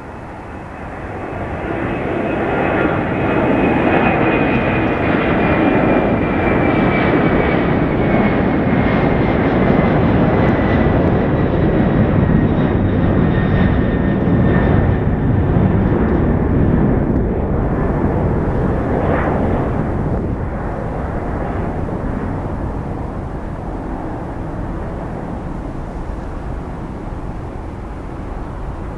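Airbus A300-600 freighter's Pratt & Whitney PW4158 turbofans at takeoff power as the jet lifts off and climbs out. The jet roar swells over the first few seconds and holds loud, with a high whine sliding slowly down in pitch, then gradually fades as the plane climbs away.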